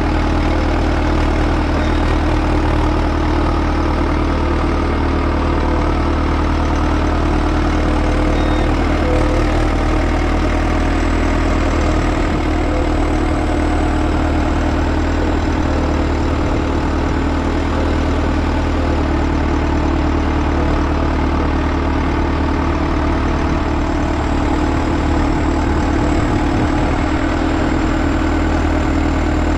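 Heavy diesel engine running at a steady, unchanging speed, with a faint high whine above it.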